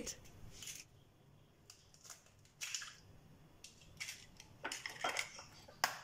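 Eggshells cracked against the rim of a glass bowl and broken open by hand: a handful of short, sharp cracks and clicks, the sharpest near the end.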